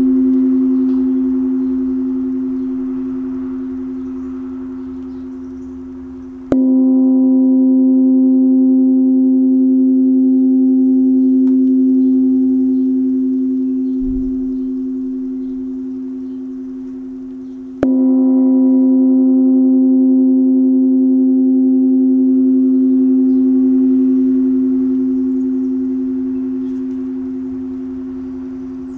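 Tibetan bossed gong struck twice, about 11 seconds apart. Each stroke sets off a clear steady tone with a few higher overtones that rings on and fades slowly. It opens on the fading ring of an earlier stroke.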